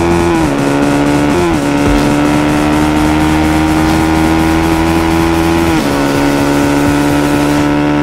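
Yamaha Vixion motorcycle engine running hard at high revs at speed, a steady buzzing note that dips in pitch about half a second in, again about a second and a half in, and near six seconds, then holds steady each time, with wind and road noise underneath.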